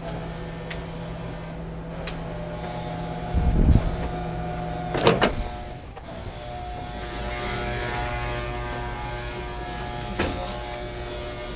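A small electric motor running with a steady hum, its pitch shifting a few times, with a few short clunks over it.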